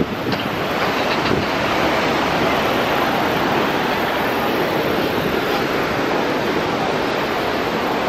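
Steady rushing roar of the Horseshoe Falls at Niagara, a huge waterfall heard close up from the brink.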